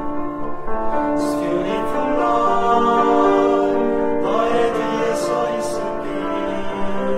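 Male vocal ensemble singing sustained chords in harmony with piano accompaniment, with hissing 's' consonants cutting through twice, near the start and again past the middle.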